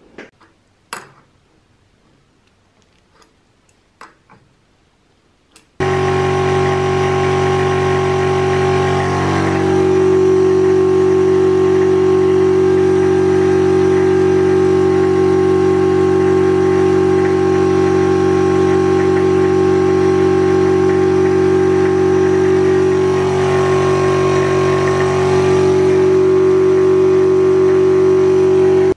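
A few light clicks and knocks of handling, then about six seconds in a high-pressure air compressor starts and runs loud and steady with a strong hum, pressurizing the high-pressure air system. It cuts off abruptly at the end.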